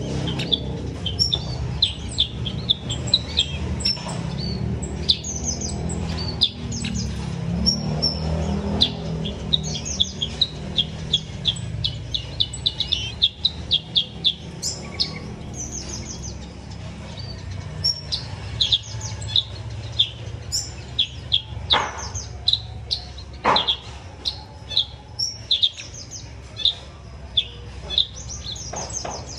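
Small aviary birds chirping over and over in short, high notes, with a quick run of rapid chirps a little before halfway. A steady low background rumble runs underneath.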